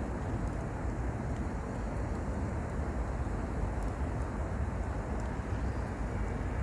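Wood fire burning in a mesh fire pit: a steady low rushing noise with a few faint crackles.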